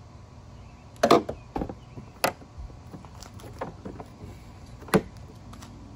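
Jeep Gladiator hood swung down and shut with a loud knock about a second in, followed by a few sharper clicks and knocks.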